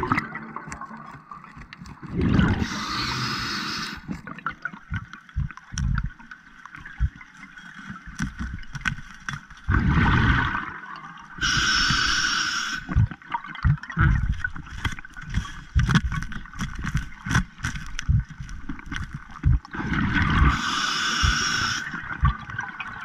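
Underwater, a diver's breathing comes in hissing, bubbling bursts about every nine seconds, with scattered knocks and scrapes from handling the speargun and a speared fish on the sea floor.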